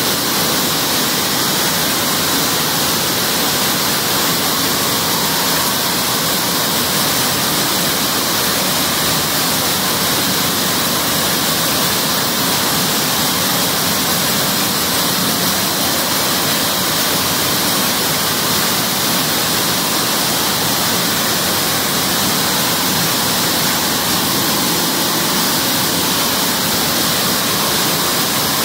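Steady, loud din of a weaving hall with many looms running, dominated by an even high hiss.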